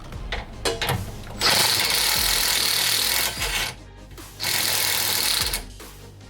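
A power tool running in two bursts, a longer one of about two seconds and a shorter one of about a second, spinning out the already-loosened 17 mm lower control arm bolts, with a few clicks and knocks around them.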